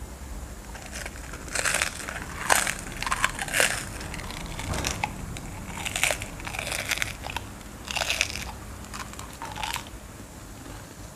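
Crispy seaweed roll snack being bitten and chewed close to the microphone: a run of irregular crisp crunches, fading out near the end.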